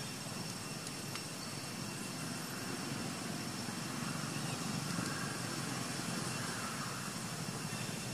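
A road vehicle's engine rumbles past, swelling around the middle and easing off again, over a steady outdoor background hiss.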